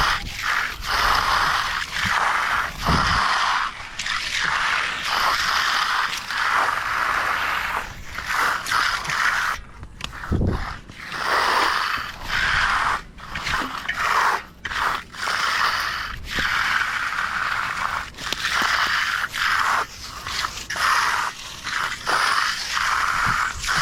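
A hand tool scraping repeatedly through concrete, in rough strokes of about a second each with short pauses between them, and a few dull knocks.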